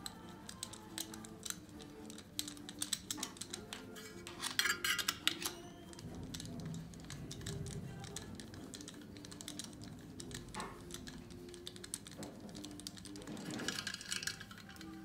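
Clicking and light metallic taps of a hand tool working on the cylinder head of a Ford 2.0 litre turbodiesel engine during a cold compression test.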